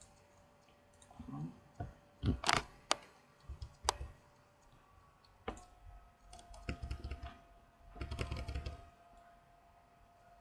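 Computer keyboard keys and mouse buttons clicking in scattered clusters, a few keystrokes at a time, with a faint steady hum underneath.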